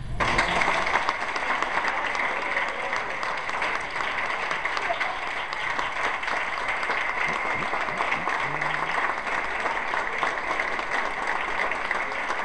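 Audience applauding at the end of a sung performance, starting suddenly as the singing stops and going on steadily, with voices mixed into the clapping.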